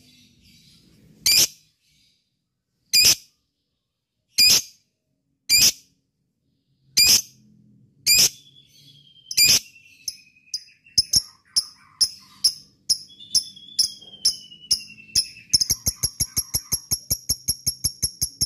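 Lovebird calling: single sharp chirps about a second and a half apart that come faster from about ten seconds in, then break into the rapid, even chattering trill called 'ngekek', about seven notes a second.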